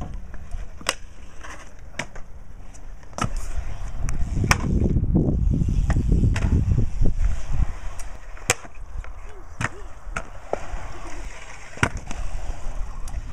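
Stunt scooter wheels rolling over concrete with a rumble that builds from about four to seven seconds in, broken by a string of sharp clacks as the deck and wheels hit ledges, coping and landings.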